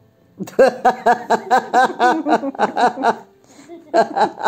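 Laughter: a long run of short ha-ha pulses, about four to five a second, from about half a second in, then a brief pause and a second burst of laughing near the end.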